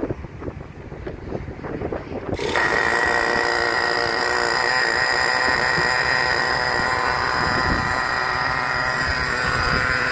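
A Traxxas TRX 3.3 nitro engine starting: low uneven knocks for about two seconds, then it catches suddenly and runs steadily with a high-pitched tone. The new engine is being run in on its second tank of break-in.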